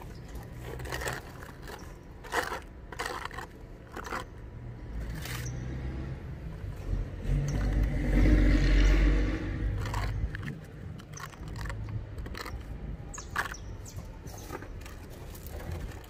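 Putty knife scraping in short strokes across the white coating on a fiberglass channel cover. A louder low rumble swells and fades about halfway through.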